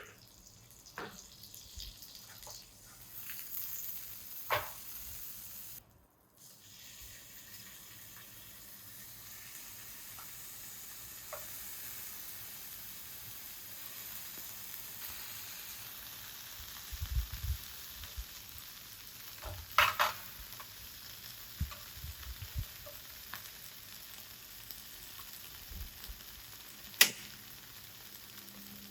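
Food frying with a steady sizzle. A few sharp clicks and knocks, likely from cooking utensils, sound through it, the loudest near the end.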